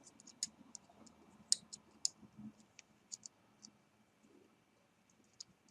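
Faint, scattered small sharp clicks and ticks of jumper-wire leads and connectors being handled and plugged together, more of them in the first few seconds.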